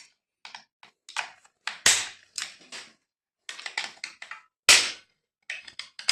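Irregular clicks, knocks and short scrapes of a hand tool and plastic parts as the recoil starter housing is unscrewed and taken off a chainsaw, with a sharper knock about two seconds in and the loudest about four and a half seconds in.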